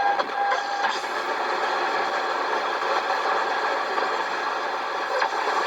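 Steady hiss of radio static from a Knight-Kit R-100 shortwave receiver with no station coming through, with a faint short whistle-like tone in the first second.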